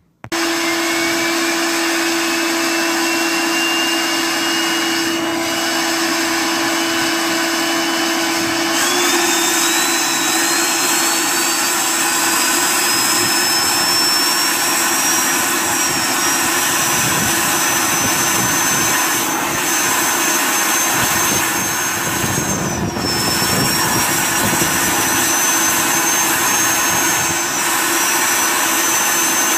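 Homemade turbocharger burn barrel running on unfiltered waste oil: a steady rushing roar with the turbo's thin high whine climbing slowly in pitch as it spools up. The whine dips briefly twice near the end.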